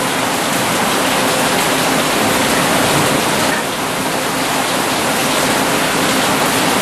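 Steady, loud rushing hiss with a faint low hum underneath, unchanging throughout.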